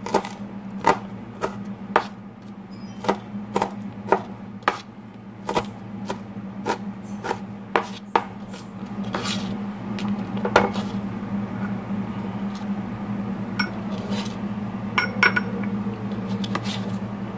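Chef's knife chopping onion on a plastic cutting board, the blade striking the board in sharp taps about twice a second. After about eight seconds the taps give way to denser scraping as the chopped onion is pushed across the board with the blade. A steady low hum runs underneath.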